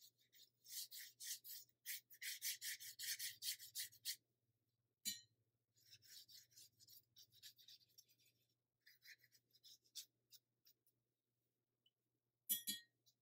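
Paintbrush rubbing over watercolor paper in quick repeated scratchy strokes, several a second, busiest in the first few seconds and lighter after. A sharp tick about five seconds in and a short clatter near the end.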